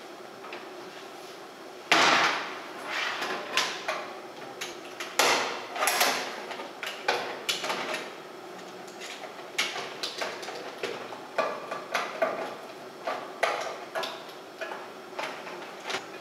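A computer keyboard and a cable being handled and shifted about on top of a sheet-metal case: irregular knocks, clacks and rattles, the loudest about two seconds in.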